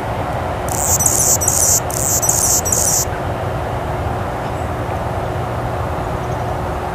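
A bird calling: two high-pitched bursts of quickly repeated notes, each about a second long, starting about a second in, over steady background noise.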